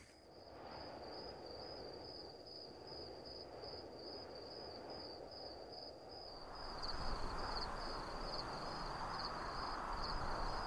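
Crickets chirping in one steady high-pitched trill with an even pulse, over a faint outdoor hiss. About six seconds in, both grow a little louder and the pulsing of the trill becomes more distinct.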